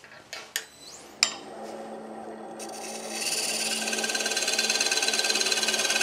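A few handling clicks and a wood lathe coming up to speed with a steady hum. About two and a half seconds in, a parting tool starts cutting into the spinning wood blank with a steady scraping hiss, deepening the tenon cut.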